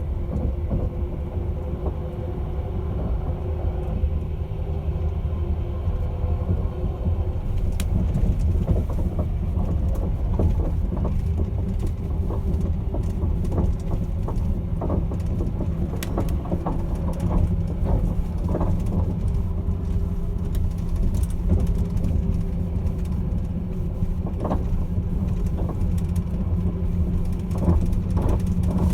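Caledonian Sleeper train running, a steady low rumble with a hum. From about eight seconds in, frequent irregular clicks and rattles join it.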